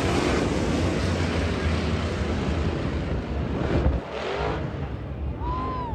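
Dirt late model race car engines running on the track, a dense, loud engine and track noise that drops away about four seconds in.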